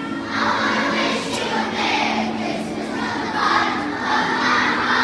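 A group of schoolchildren singing a Christmas carol together.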